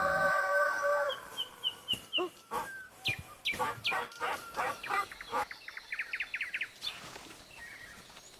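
Birds chirping and calling: a held call in the first second, then a run of short, quick chirps and a fast trill about six seconds in.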